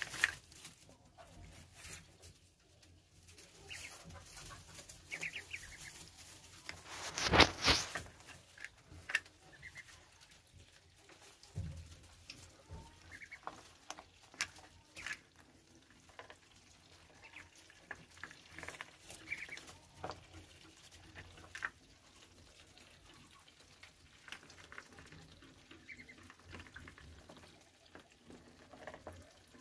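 Young Muscovy ducks feeding from a bowl of chopped greens: soft pecking and rustling with scattered short, high peeps. About seven seconds in there is a brief loud rustle.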